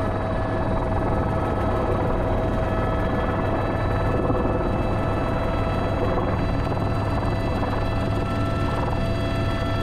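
Airbus H125 helicopter's single turboshaft engine and rotors running steadily while lifting an underslung load of around 800 kilos, heard from inside the cockpit. A steady turbine whine sits over a low rotor drone.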